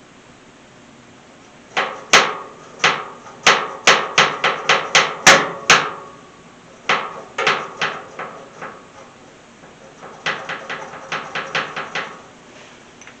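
Sharp metallic knocks with a short ring, several a second, coming in three runs: a few at first, a fast run of about a dozen, then a lighter run near the end. They come from working on the stiff, just-lubricated switch of an old scrapped Lincoln welder.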